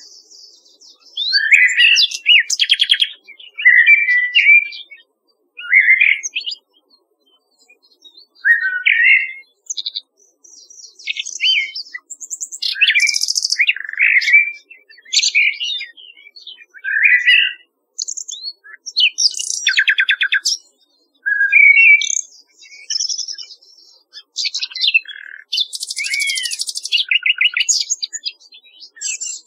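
Nightingale and blackbird song: phrase after phrase with short pauses, some clear fluted whistles and some fast rattling trills.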